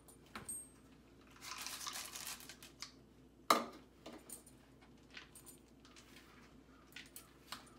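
Chocolate chips poured into a bowl of batter with a short rattle, then a metal spoon scraping and clinking against the mixing bowl as they are folded in. One sharp clink about three and a half seconds in is the loudest sound, with a few lighter taps.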